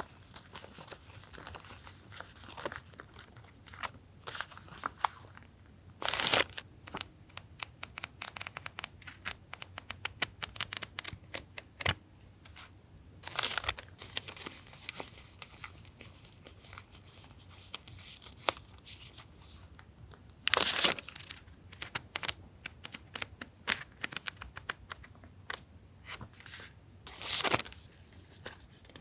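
Sheets of stickers and background paper being handled: a run of soft paper rustles and small clicks, with a louder crinkling rustle about every seven seconds as a sheet is picked up or turned.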